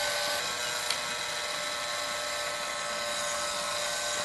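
Small electric rotisserie motor running steadily with a thin whine as it turns the spit, with a faint click about a second in.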